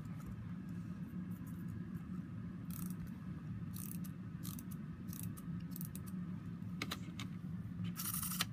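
Small clockwork wind-up toy being wound and handled: scattered ratchet clicks and light knocks over a steady low hum.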